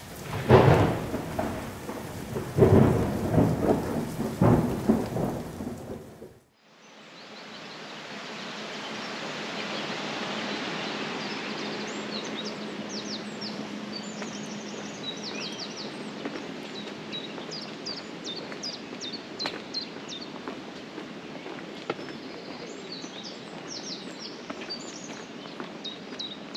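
Three loud, thunder-like rumbles about two seconds apart, cutting off suddenly after about six seconds. Then a steady rushing of river water, with small birds singing high, quick chirps from about twelve seconds on.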